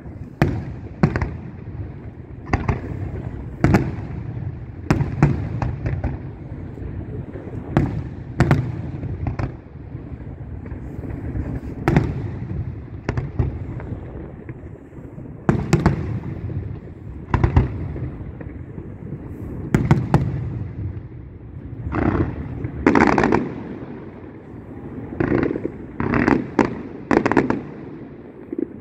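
Aerial firework shells bursting in quick, irregular succession: sharp bangs about once a second, each trailing off in an echoing rumble.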